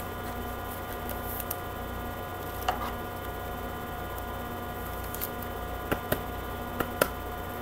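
Steady electrical mains hum, with a few light clicks from trading cards being handled, mostly in the second half.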